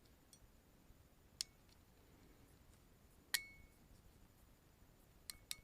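Hand crimping tool clicking shut on an MC4 solar connector pin as it is crimped onto the wire: one sharp click about a second and a half in, a louder one a little after three seconds with a brief metallic ring, and two quick clicks near the end.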